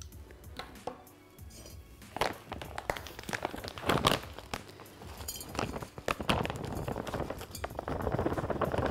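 Metal pruners clinking down on a stone countertop and a plastic bag of cactus potting mix crinkling as it is handled, with sharp clicks and knocks. Near the end, soil starts pouring from the bag into a terracotta pot as a steady rustle. Soft background music plays underneath.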